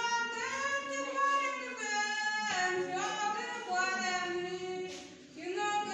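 A woman singing a worship hymn solo and unaccompanied, in long held notes that slide between pitches, with a short breath pause about five seconds in.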